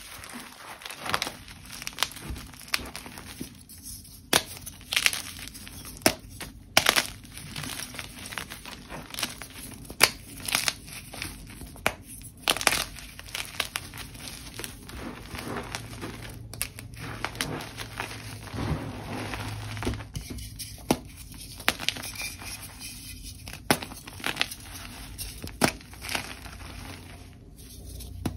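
Blocks of dyed gym chalk being crushed and crumbled by hand: a dense, irregular run of dry crackles and crunches as chunks snap apart and grind into powder between the fingers.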